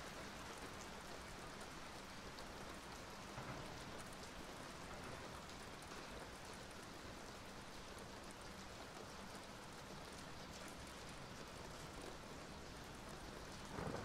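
Steady rainfall, an even hiss of falling drops. Right at the end a low thunder rumble begins to swell.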